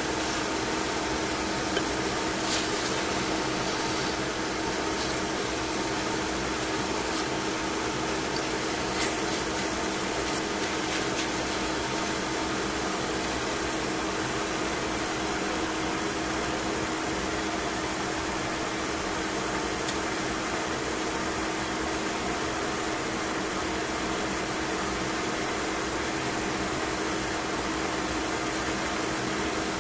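Chicken pieces in miso marinade frying in a stainless steel pan: a steady sizzle over a constant hum, with a few clicks of tongs against the pan in roughly the first ten seconds.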